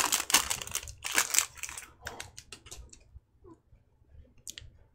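Crinkling and clicking as a Topps Chrome baseball card pack and its stack of stiff cards are handled. It is busy for about the first two seconds, then a few scattered clicks, then almost quiet with one last click near the end.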